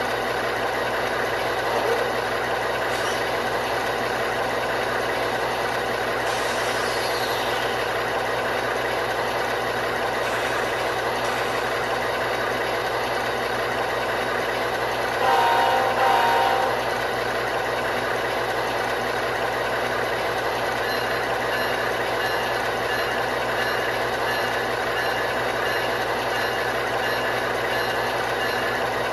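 Sound-equipped HO-scale GE ES44AC model's ESU LokSound decoder playing a diesel engine sound through small speakers, running steadily. A brief louder blast of a few tones sounds about halfway through.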